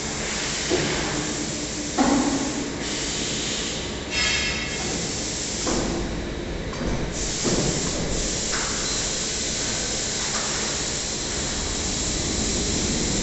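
A bandsaw's motorized slat conveyor and hydraulic pusher unloading system running: a steady hissing rush of machinery, broken by several sudden metallic clunks, with a thin high whistle joining in the second half.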